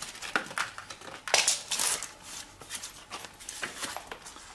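Irregular rustling, scraping and clicking of packing foam, plastic wrap and tyre as a zip-tied front wheel is pulled free from a boxed bicycle's frame.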